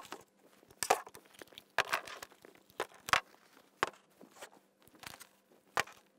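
Camera kit being unpacked from a padded rucksack and set down on a wooden desk: a string of irregular knocks and clunks as the pieces land, with rustling of the bag's fabric compartments in between.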